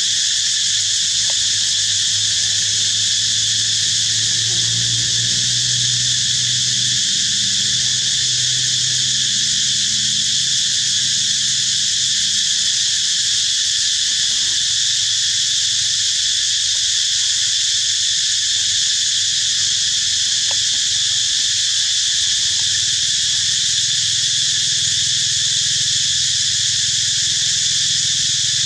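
Dense insect chorus, a steady high-pitched drone, with a low hum underneath that swells and fades in the first half.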